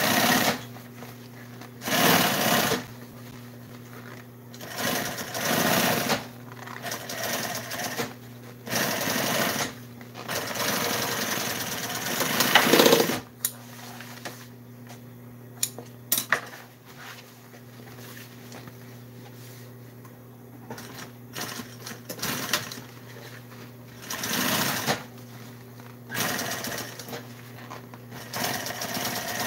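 Industrial sewing machine stitching vinyl upholstery in short runs of one to three seconds, its motor humming steadily between runs. There is a longer stop in the middle while the material is repositioned.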